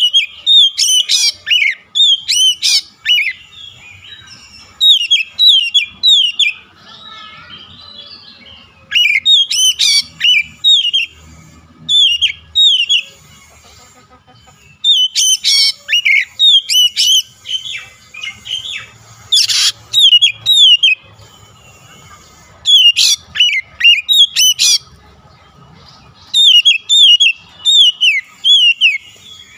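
Oriental magpie-robin singing in full song: phrase after phrase of rapid, downward-slurred whistled notes, with short pauses between phrases.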